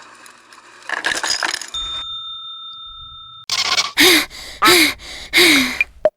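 Cartoon sound effects: a busy jingle for about two seconds, then a bell-like chime ringing on a steady tone until about three and a half seconds in, then three loud cartoon calls with bending pitch, each under a second long.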